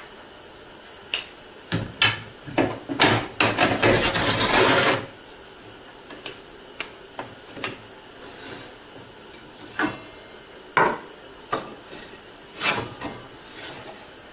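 Wooden pieces and the rip fence being set down, knocked and slid on a stopped table saw's metal top: scattered sharp knocks and clatter, with a longer scraping slide about three to five seconds in.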